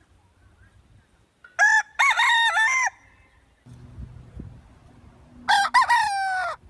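Rooster crowing twice: one cock-a-doodle-doo about a second and a half in and another near the end, the second trailing off in a long falling note.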